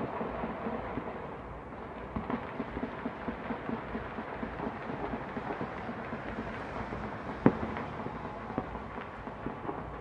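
Distant New Year's celebratory gunfire from rifles and handguns mixed with fireworks: a steady stream of scattered pops and cracks, several a second, with one sharper, louder crack about seven and a half seconds in.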